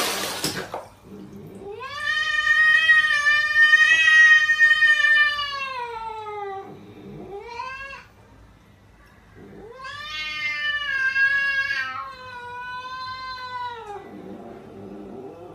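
A domestic cat yowling in long, drawn-out wavering calls. There are two long yowls of several seconds each, a short rising meow between them, and a fainter call near the end.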